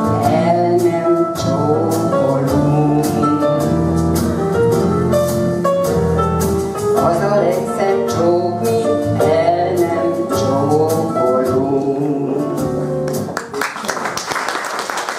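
A woman singing a Hungarian pop song (táncdal) into a microphone, accompanied by an electronic keyboard with a steady beat. The song ends about thirteen seconds in and applause starts.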